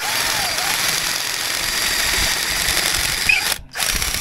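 DeWalt 20V XR cordless drill with a letter-T bit, drilling through metal clamped in a vise, running steadily at speed. It stops briefly about three and a half seconds in, then starts drilling again.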